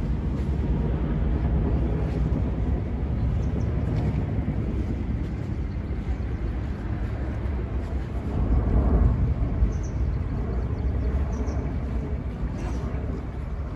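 Outdoor city ambience: a steady low rumble that swells louder for about two seconds around eight seconds in.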